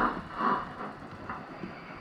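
Sound-equipped O gauge model steam locomotive, an S&D 4F 0-6-0 banker, giving a couple of slow exhaust chuffs that die away about a second in as it eases off, leaving only a faint running noise.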